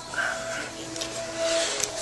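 Background music with held notes, and a couple of faint clicks.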